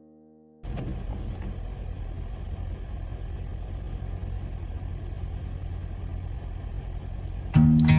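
Steady in-cabin road noise of a car driving on a rain-wet road: a low rumble with a hiss from the tyres. It sets in suddenly about half a second in, just after a piano chord fades. Near the end an acoustic guitar song starts.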